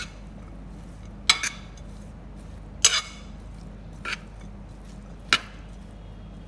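A spoon clinking against the side of a bowl while mixing spices, tamarind paste and onions, four separate clinks about a second and a half apart.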